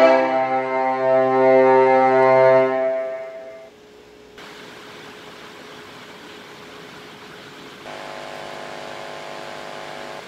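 Music played through a pair of bare Ssangyong Rexton door speakers: a held chord that fades out about three to four seconds in, a few seconds of faint hiss with one thin steady tone, then a quiet chord coming back near the end.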